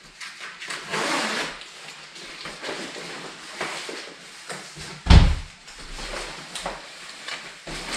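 Textile motorcycle jacket being handled: the polyester shell rustles in short scraping bursts, with one loud thump about five seconds in.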